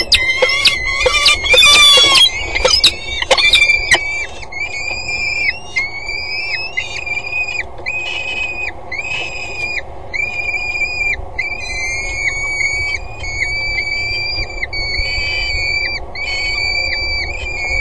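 Peregrine falcons calling during a prey hand-over: a loud burst of rapid, harsh calls in the first few seconds, then a steady series of drawn-out calls held at one pitch, about one a second.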